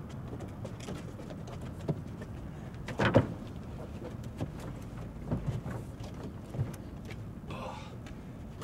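A large cardboard TV box is set down into a pickup truck's bed with a single loud thump about three seconds in, amid scattered lighter knocks over a steady low hum of outdoor background noise.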